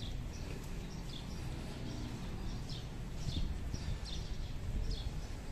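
Small birds chirping, short high calls repeating several times a second, over a low outdoor rumble.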